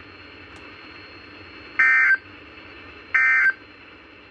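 Emergency Alert System end-of-message signal: two short bursts of screechy SAME digital data tones, about one and a half seconds apart, over a faint steady radio hiss. The bursts mark the end of the broadcast alert message.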